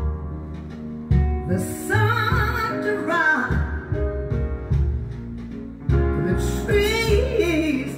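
Slow song played from a vinyl record over hi-fi loudspeakers: guitar and bass, with a wavering, bending melody line rising about two seconds in and again near the end.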